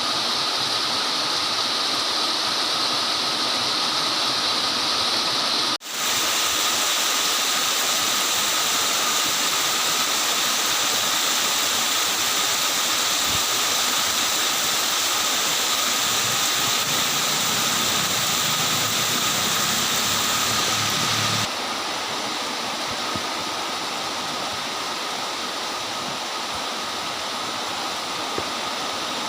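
Heavy torrential rain pouring down, a steady loud hiss. The sound cuts out for an instant about six seconds in and steps slightly quieter about twenty-one seconds in.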